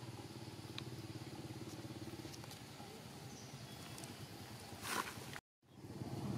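A steady low hum of an idling engine runs throughout. A brief rustle comes about five seconds in, and just after it the sound cuts out completely for a split second before the hum returns.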